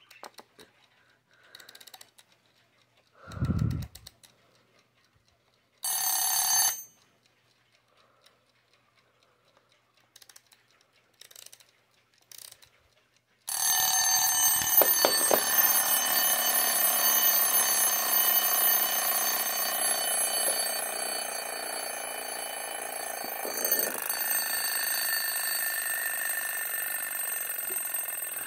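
Sabre wind-up alarm clock: faint clicks from its knobs and a thump in the first few seconds, a short ring of the alarm bell about six seconds in, then from about halfway the mechanical alarm bell rings continuously, easing off slightly toward the end.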